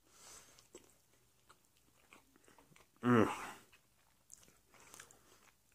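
Quiet chewing of a chocolate chip peanut butter cookie, with a few faint crunching clicks and one brief vocal sound from the eater about three seconds in.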